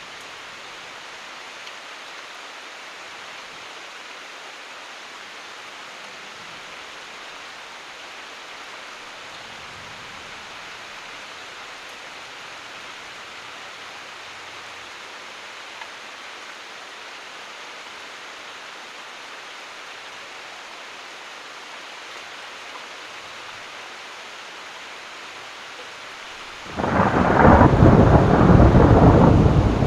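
Steady rain falling, then near the end a sudden, loud clap of thunder that rolls on as a deep rumble.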